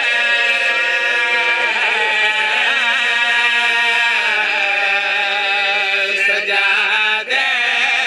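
Men singing a Shia mourning lament in long, drawn-out held notes: a lead voice with backing singers holding the tune alongside.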